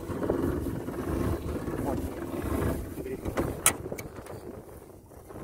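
A crab pot being hauled up by hand on its rope over the side of an aluminium boat, against a low wind rumble, with a few sharp knocks about three and a half seconds in as the pot nears the hull.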